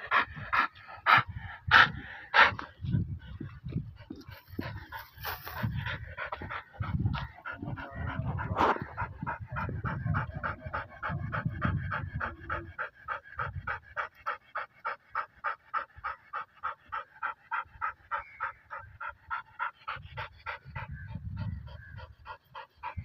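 Pit bull dog panting rapidly, about four to five pants a second, with a few louder pants in the first few seconds.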